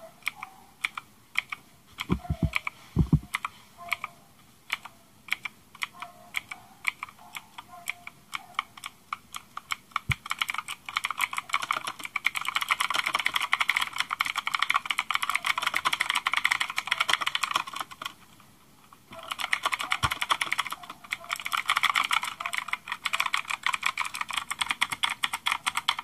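Rakk Kimat XT.LE mechanical keyboard with stock ABS keycaps being typed on. Slow, separate keystrokes turn into fast, continuous clatter about twelve seconds in, with a short pause near nineteen seconds. A few deeper thuds stand out among the clicks.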